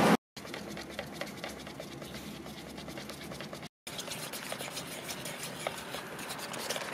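Stick scraping and ticking against a plastic bucket as epoxy resin is stirred, with many small irregular ticks. A loud steady hum cuts off right at the start.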